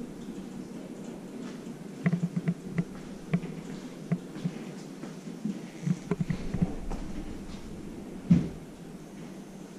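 Irregular light knocks and taps over a low steady background noise, with one louder knock near the end.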